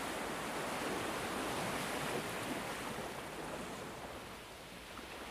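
A soft, steady rushing noise like surf or hiss, easing off a little near the end.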